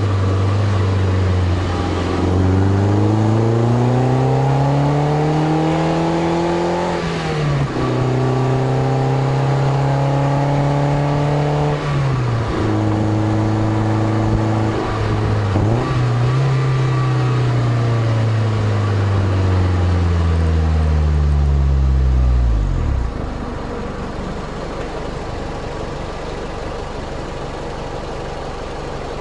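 Toyota MR2 Spyder's 1.8-litre four-cylinder through a titanium cat-back exhaust, heard close at the tailpipe. The engine note climbs, drops sharply at a gear change about seven seconds in and holds steady. It then falls away and settles to a quieter idle for the last several seconds.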